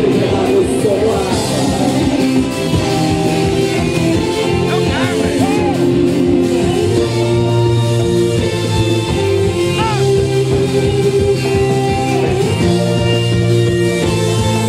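Amplified live band music with guitar over held chords, an instrumental stretch with no clear lyrics.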